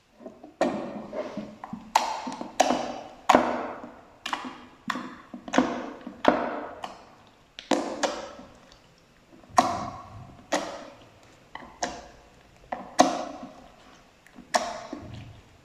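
Slime being pressed and squeezed by hand: a run of sharp, crackling presses, each fading over about half a second, a little more than one a second and unevenly spaced.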